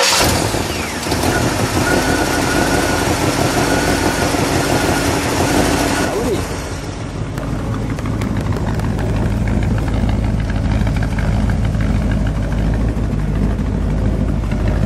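The Lincoln 460 cubic-inch V8 in a 1957 Mercury Monterey running just after being started, at first fast with a high-pitched whine over it. About six seconds in, the whine drops away and the engine settles into a lower, steady idle with a deep rumble.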